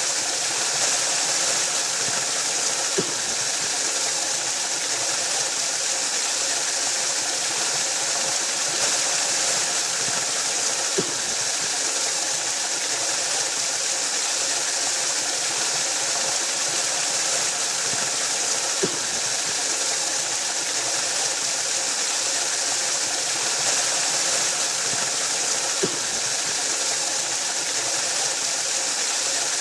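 Waterfall: a steady rush of falling water, with a faint click about every seven to eight seconds.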